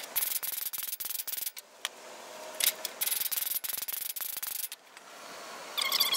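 Ball peen hammer striking a steel crosscut saw blade laid over a wooden block, hammering a kink out of the blade: runs of rapid strikes, three runs with short pauses between. Near the end, louder scraping and squeaking sounds start.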